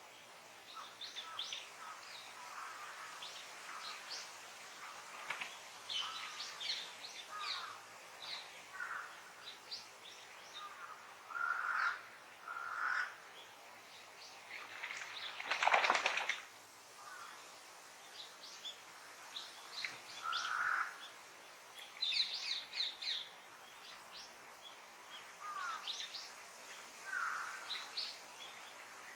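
Wild birds calling with many short chirps and call notes, several overlapping, with a louder, longer, harsher sound about halfway through.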